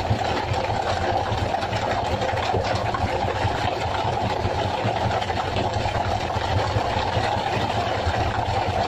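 Fishing boat's engine running steadily, a constant unbroken drone.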